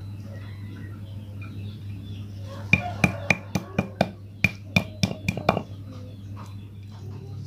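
Stone pestle striking boiled jengkol beans on a stone mortar to flatten them: about ten sharp knocks in quick succession, roughly three a second, starting about three seconds in.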